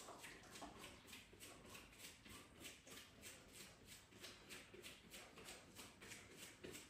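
Faint, even rhythmic tapping, about four taps a second, steady throughout.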